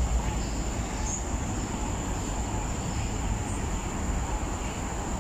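Steady outdoor rumble, low and uneven, with a continuous high-pitched insect drone running over it.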